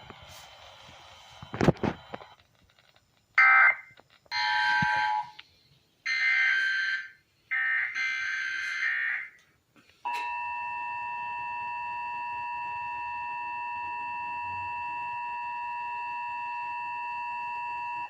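Emergency Alert System broadcast tones: several short bursts of buzzing data tones, the encoded alert header, then from about ten seconds in the steady two-tone EAS attention signal, a harsh chord of 853 and 960 Hz held at an even level.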